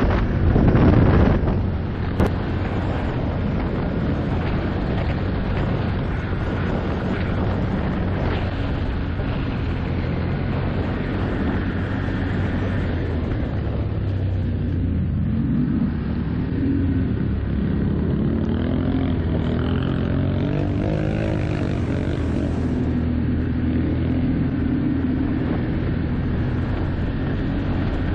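ATV engine running while riding, heard from onboard the quad. Wind buffets the microphone for the first second or so, then a steady engine drone takes over, its pitch rising and falling for a few seconds in the middle as the throttle changes.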